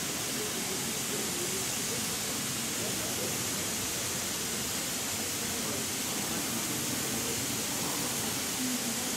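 Steady hiss of water spraying from a sprinkler installation's nozzles into fine mist.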